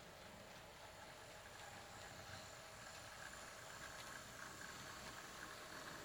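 Faint HO scale model train running, a steady motor whine that grows slightly louder.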